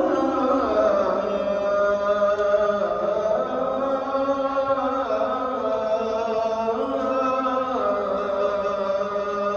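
A single voice chanting a religious recitation in long held notes that shift in pitch every second or two.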